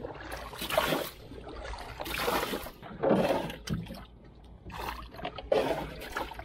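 Water being bailed out of the bottom of a wooden canoe with a plastic bailer: a series of scoops and splashes, about five, as each load is tipped out.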